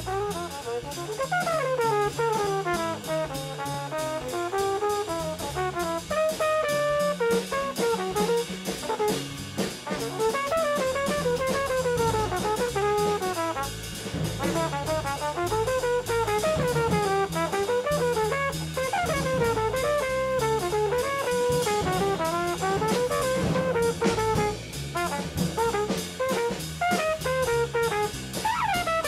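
Jazz combo playing: a saxophone solos in quick phrases that rise and fall, over a bass line and drum kit.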